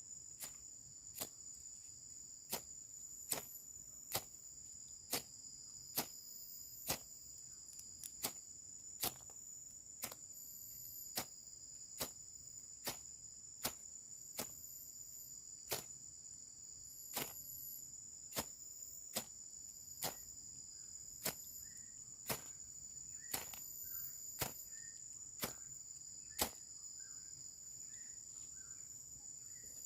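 Steady high-pitched chorus of crickets, with sharp clicks or taps about once a second that stop a few seconds before the end.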